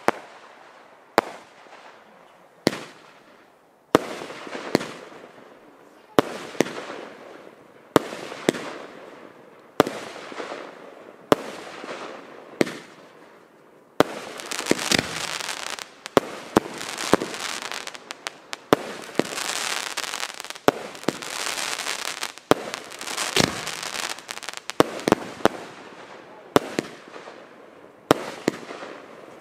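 Fireworks display: shells bursting with sharp bangs about once a second or so. About halfway through, the bangs are joined by a dense, steady hiss full of fast small pops.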